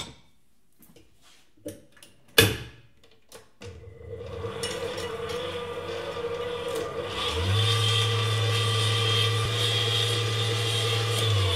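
Stand mixer with a wire whisk creaming butter in a stainless steel bowl: a few knocks and clicks, then the motor starts about a third of the way in with a steady whir and steps up to a higher, louder speed about two thirds in.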